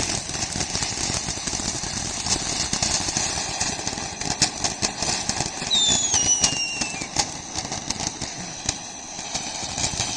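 Ground fountain firework spraying sparks with a steady hiss full of sharp crackles, with a short falling whistle a little past halfway.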